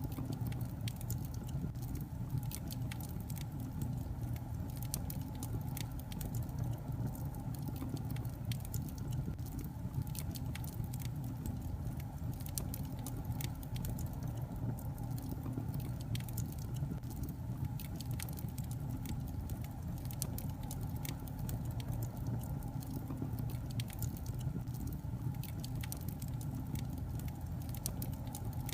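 Logs burning in a fireplace: a steady low rumble from the fire with frequent small crackles and pops.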